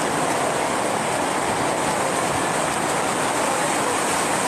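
Rain falling steadily on a tent canopy, an even hiss with no breaks.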